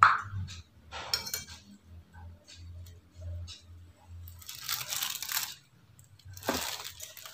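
A metal spoon clinking against plates and a plastic lunch container as food is spooned in, with a sharp clink at the start. Scattered small clicks follow, and two longer scraping sounds come about halfway through and near the end.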